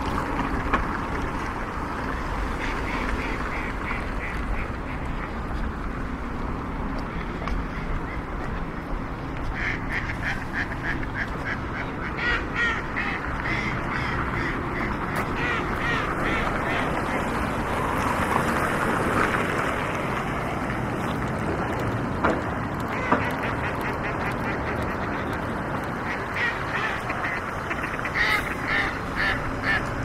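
Ducks quacking in runs of short, rapidly repeated calls, over steady outdoor background noise.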